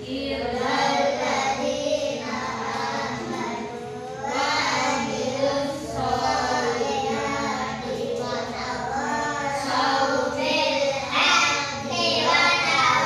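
A group of children reciting a prayer together in unison, in a sing-song chant, phrase after phrase.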